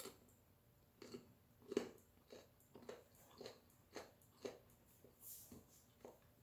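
A person chewing crunchy food, quiet crackly chews repeating about twice a second.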